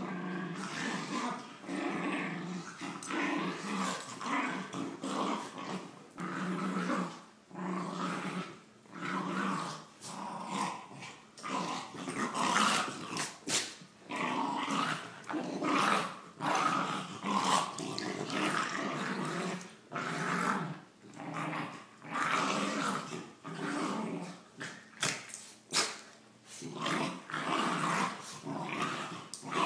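Two dogs growling as they play-wrestle. The growls come in bouts of a second or two with short breaks between them, with a few sharp, short noises among them.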